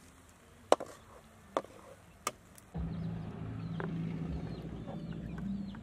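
Three sharp knocks about a second apart, a wooden spatula tapping stir-fried greens off onto a plate. Then, a little before halfway, a steady low hum sets in with faint short chirps over it.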